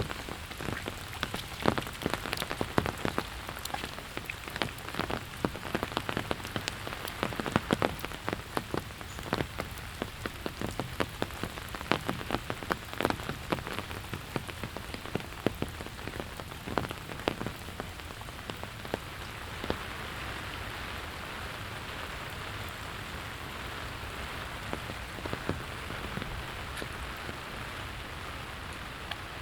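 Steady rain with many close, sharp drops landing for the first two-thirds, easing to an even, smoother hiss about twenty seconds in.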